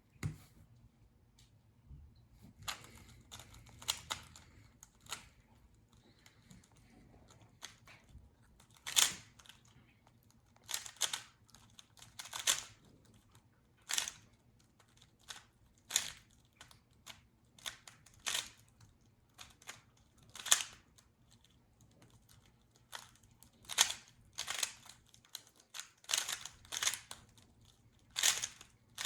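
Rubik's Cube being turned fast by hand in a speedsolve: a string of sharp plastic clicks and clacks at an uneven pace, about one or two a second, growing busier later on.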